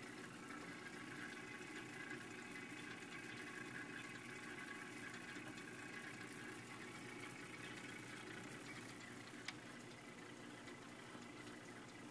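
Faint, steady bubbling of aeration air rising through the water of a small fish-rearing tank, with a single sharp click about nine and a half seconds in.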